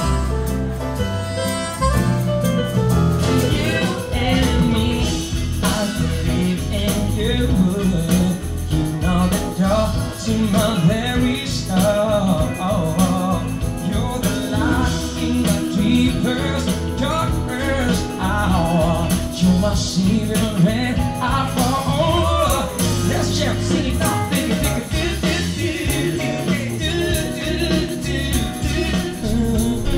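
Live band playing a song: vocals over an electronic keyboard, with a steady beat.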